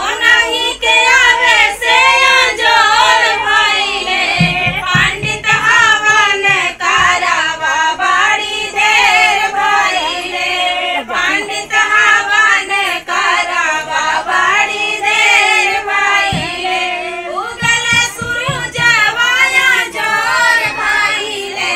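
Women singing a havan geet, a Hindu devotional folk song, with one voice on a microphone, the notes wavering and ornamented.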